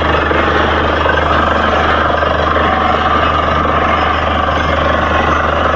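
Truck-mounted borewell drilling rig running: a loud, steady mechanical din with a constant low hum underneath.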